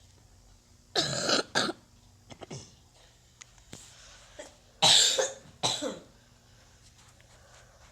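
A person coughing in two short bouts, one about a second in and one about five seconds in.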